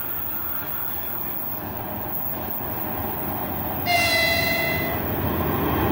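Four-section 2ES5K "Ermak" electric locomotive set hauling a freight train, approaching with a steady rumble that slowly grows louder. About four seconds in, the lead locomotive's horn sounds once for about a second, a chord of several steady tones, given by the crew as a greeting.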